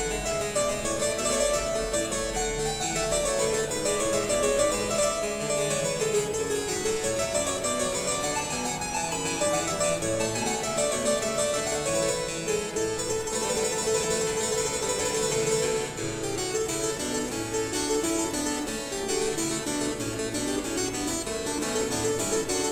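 Baroque chamber ensemble playing live, the harpsichord prominent in continuous busy runs of notes, with violin, transverse flute and strings.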